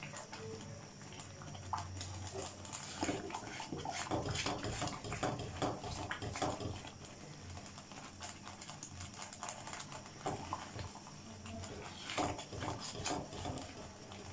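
Thick sweet potato and custard kheer bubbling in a pan as it cooks down, its bubbles bursting in irregular soft pops and plops.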